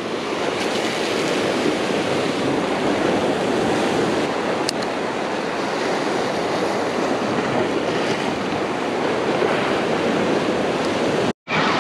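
Steady rush of ocean surf washing against the coast, with no distinct events; the sound drops out for a moment near the end.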